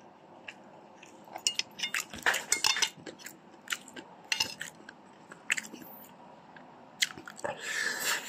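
A man chewing and biting chicken adobo with rice close to the microphone: irregular sharp wet mouth clicks, busiest about two seconds in and again near the end.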